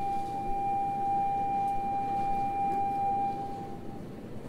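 A steady, single-pitched electronic tone, such as a platform or train signal buzzer, stops about three and a half seconds in, over a low background rumble.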